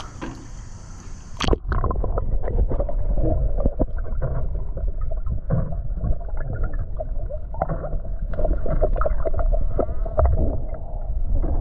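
Pool water heard from underwater: about a second and a half in, the sound drops from open air into the water. From there it is a muffled, dull rumble of churning water and sloshes as a baby kicks and is swum along just under the surface, with a faint steady hum beneath.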